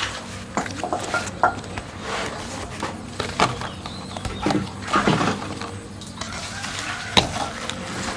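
Banana leaves rustling and patting as they are handled and laid flat on a wooden table, with scattered light knocks. Near the end a metal spoon clinks and scrapes in an aluminium bowl, with one sharp clink about seven seconds in.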